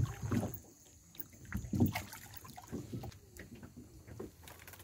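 Water lapping and sloshing against a small boat's hull in irregular low surges, with a few light knocks.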